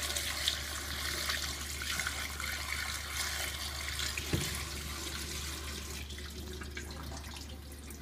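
Water pouring in a steady stream into the wash tub of a Hoover Spinarinse 3012A twin-tub washing machine as it is filled, easing slightly near the end. A low steady hum runs underneath, and there is a single short knock about halfway through.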